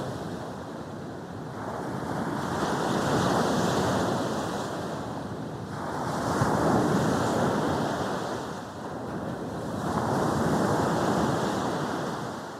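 Sea waves breaking and washing up a beach, three swells about four seconds apart.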